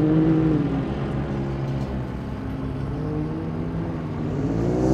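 Off-road race vehicle engine running, its pitch dropping about half a second in and climbing again near the end as it accelerates.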